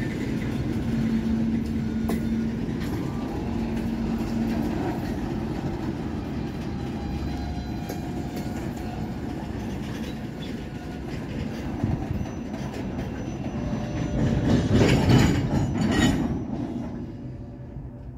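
Freight cars of a long train rolling past: a steady rumble of steel wheels on rail with scattered clacks, loudest about fifteen seconds in, then fading.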